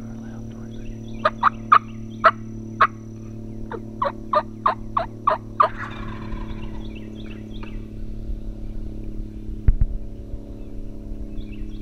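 Turkey yelps in two runs of short, sharp notes, five and then seven, followed by a brief rattle. A single sharp thump comes near the end.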